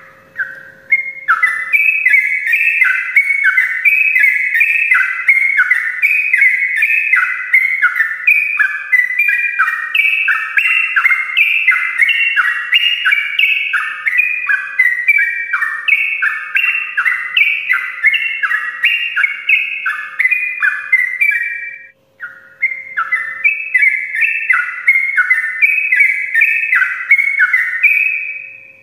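Yellow-vented bulbul (trucukan) singing a long, rapid, unbroken run of short warbling notes, the 'ropel' song of a bird in full voice, with one brief pause about three-quarters of the way through. A faint steady hum lies underneath.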